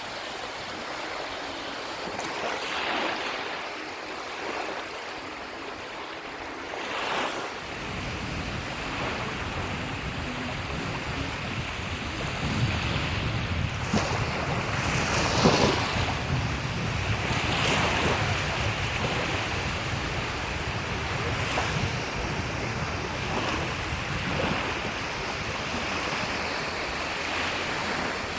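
Sea waves washing onto the shore, swelling and falling every few seconds. Wind buffets the microphone with a low rumble from about seven seconds in.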